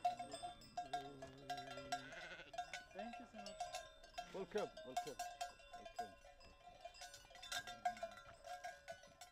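Livestock bells clanking over and over as a flock moves, with a few sheep bleating.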